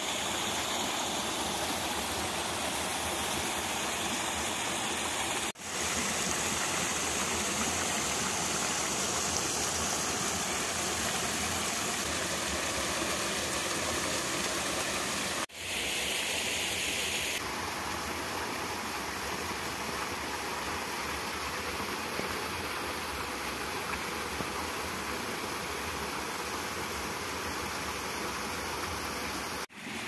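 Steady rush of a rocky mountain stream spilling over small cascades, with two very brief dropouts in the sound.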